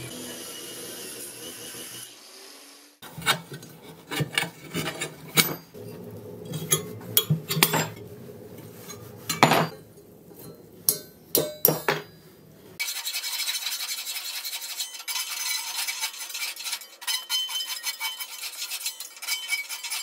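Angle grinder cutting steel for the first two seconds, then a run of sharp metallic clicks, clinks and scrapes as a steel grill grate is handled and scribed on a workbench. From about thirteen seconds a steady hiss with faint ticks.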